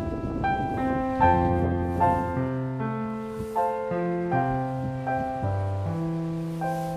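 Background instrumental music: a melody of held notes over lower bass notes.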